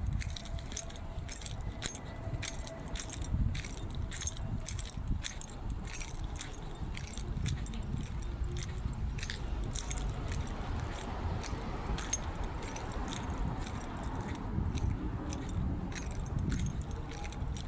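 Light irregular jingling and clicking throughout, over a steady low rumble.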